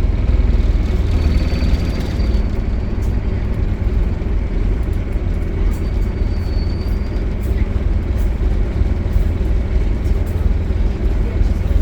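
Optare Solo single-deck bus running, a steady low drone with no change in pace, and a faint brief high whine twice.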